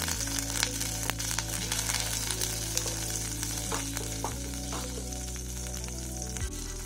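Butter sizzling as it melts in a nonstick pan, stirred and scraped with a wooden spatula, with a few light knocks of the spatula.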